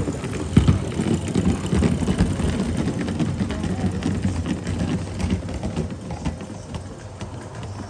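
Small live-steam model steam locomotive running with a train of wagons, with rapid repeated clicking over a low rumble, loudest about half a second in and easing off toward the end.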